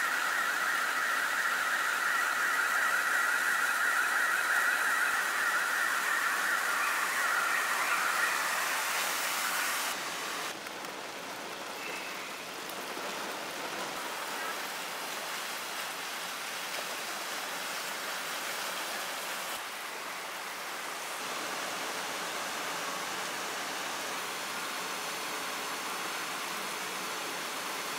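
Heavy rain and floodwater rushing down a city street make a steady hiss. For about the first ten seconds a loud, shrill buzzing sound rides on top of it, then stops at a cut.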